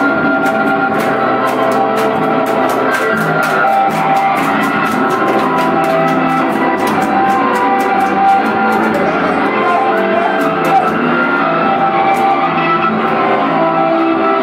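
A loud band playing guitar-driven rock or metal with drums, steady and without a break.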